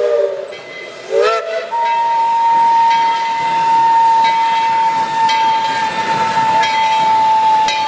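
Steam locomotive whistle: it rises briefly, then holds one long steady note for about six seconds over a hiss of steam.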